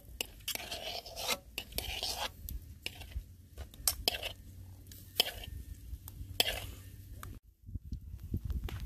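Metal spoons scraping and stirring in a steel wok with a little liquid, in irregular scrapes and clicks. The sound breaks off briefly near the end.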